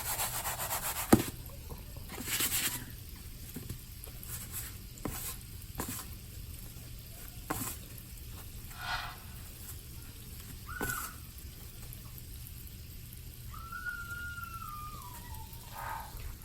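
Hot oil sizzling steadily as biscuit-dough donuts fry, with a few short shaking bursts, a sharp knock about a second in, and a thin whistle-like tone sliding downward near the end.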